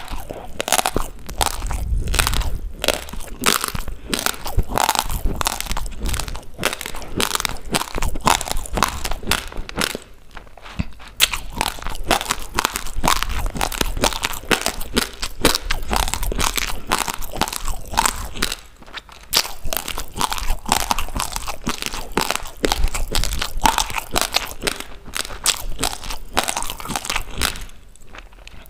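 Close-miked crunching and chewing of raw rice grains, a dense run of sharp crunches that breaks off briefly about a third of the way in, again about two-thirds in, and once more near the end.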